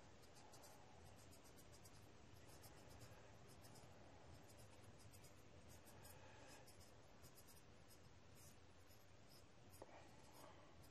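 Faint rubbing of a cloth wiping a model car wheel clean, in many short, irregular strokes.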